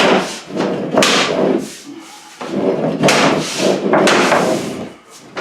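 Vinyl plank flooring being knocked into place, several thuds and knocks a second or so apart as the planks' locking edges are tapped down and seated.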